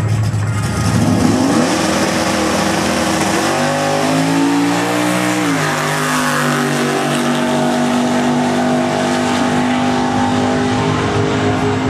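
1955 Chevy drag car's engine revving up as it launches and accelerates hard down the strip. The pitch climbs, drops once about five and a half seconds in, then holds steady as it pulls away.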